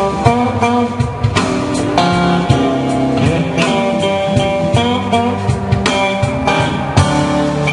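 Live blues band playing: electric guitars and bass over a drum kit, with sustained guitar notes and steady drum hits.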